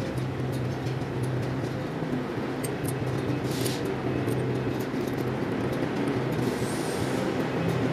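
A steady, low mechanical hum of a running engine or machine, with a few light metallic clicks from a spanner and screwdriver working the valve adjusting screws and locknuts on the cylinder head.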